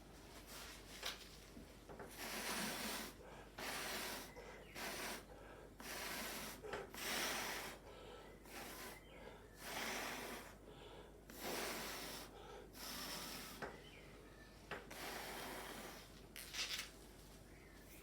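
Repeated puffs of breath blown by mouth across wet acrylic pour paint to push it over the board, each a short breathy hiss, about a dozen in irregular succession.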